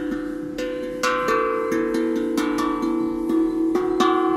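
Homemade steel tongue drum, made from two welded steel frying pans (kadai), played by hand. The fingers strike one tongue after another, about two notes a second. Each note rings on and overlaps the next, giving a bell-like melody.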